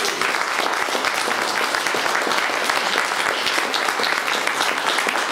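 Audience applauding: dense, steady clapping from a crowded room.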